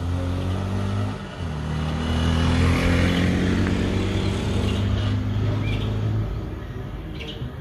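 A motor vehicle's engine running steadily, growing louder about two to three seconds in and easing off near the end, as a vehicle passing on the road.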